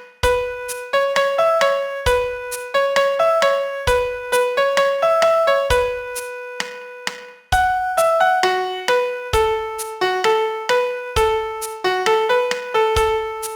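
Piano playing a slow melody of single notes over low bass notes every second or so, each note struck and decaying.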